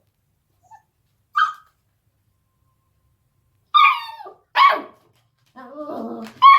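Eight-week-old beagle puppy barking: a short yip, then a pair of high-pitched barks, a longer, lower sound, and one more bark near the end.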